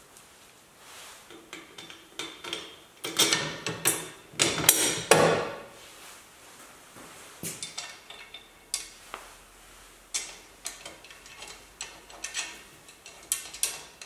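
Irregular metallic clinks, taps and knocks from hand tools working on a car's rear suspension spring plate and trailing arm. The loudest knocks come in a cluster a few seconds in.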